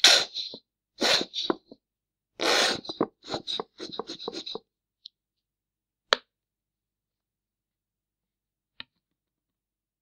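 Squeeze bottle of ketchup making farting sputters as it is squeezed: three longer blasts in the first three seconds, then a rapid run of short sputters until about four and a half seconds in. A sharp click follows about six seconds in and a fainter one near nine seconds.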